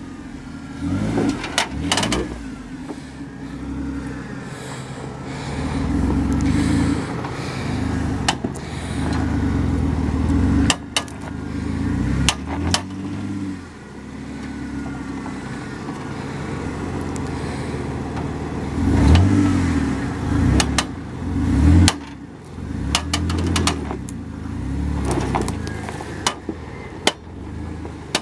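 Jeep Wrangler JK engine running at low speed, its throttle swelling and easing repeatedly as it crawls over rocks, with scattered sharp knocks and clicks.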